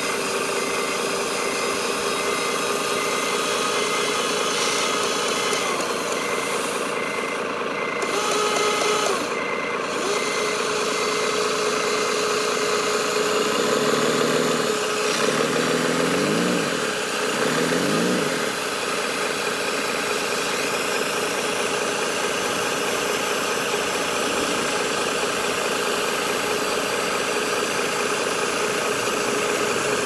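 Scale engine sound of a radio-controlled truck running steadily, rising in pitch in a few quick steps around the middle. A regular beeping, about two a second, runs over the first half and stops around the middle.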